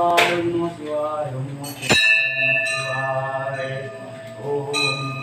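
A temple bell struck once about two seconds in and left ringing, then struck again more faintly near the end.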